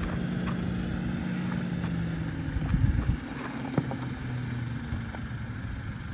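2024 Toyota Tacoma crawling slowly over rock, its engine running steadily at low revs, with a few sharp cracks from the tyres on rock about three seconds in. Wind buffets the microphone.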